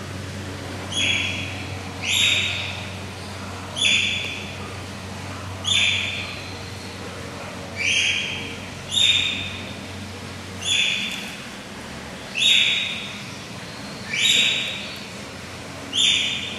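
Eurasian otter calling over and over: ten short, high-pitched squeaking calls, one every one and a half to two seconds.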